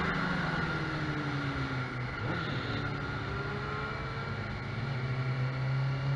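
2001 Suzuki GSX-R 600's inline-four engine through a Yoshimura racing exhaust, revs falling as the bike slows for a corner, with a short blip of revs about two seconds in. It holds low revs, then climbs again and grows louder near the end as the throttle opens out of the corner, over steady wind rush.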